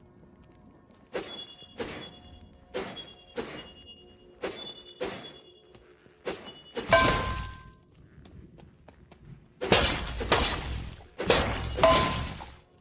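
Katana sword sound effects. First comes a run of about seven sharp metallic clinks, each with a brief high ring, spaced under a second apart. Then come three longer, louder noisy strokes of about a second each, two of them ending in a ringing tone.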